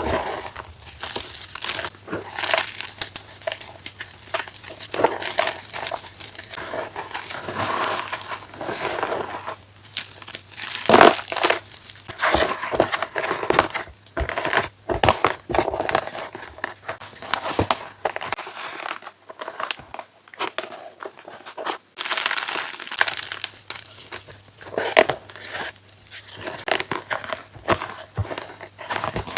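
Chalk being crushed and crumbled by hand close to the microphone: dense, irregular crunching and crackling with sharp cracks, the loudest about eleven seconds in.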